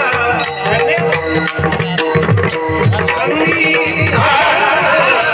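Warkari kirtan music: several voices singing a wavering devotional melody over mridang drum strokes and a regular beat of small hand cymbals (taal).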